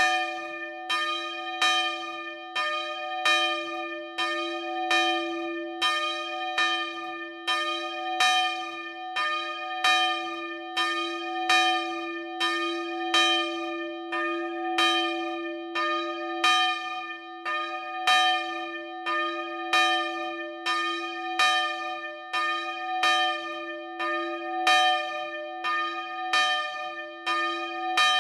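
The third bell, 'Panna Mária' (about 102 kg, cast in 1937 by the Fischer brothers of Trnava, tuned to f²), swinging and ringing alone, its clapper striking at a steady rate of somewhat more than once a second. Each stroke rings on over the next, so the tone never dies away.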